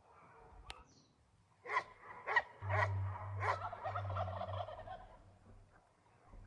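A strange animal-like call: a few sharp, short cries, then a loud, rapidly warbling call lasting about two seconds before it fades.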